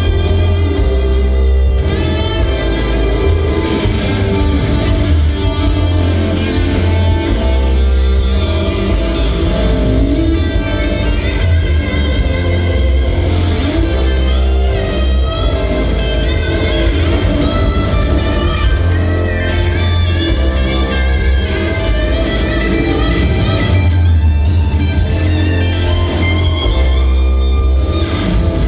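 Rock band playing live: an electric guitar plays melodic, bending lead lines over bass and drums, with a heavy, booming low end.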